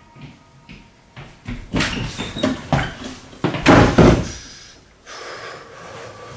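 Thuds and knocks on a wooden interior door: a run of irregular bumps, the heaviest two close together about three and a half seconds in, then a softer steady hiss.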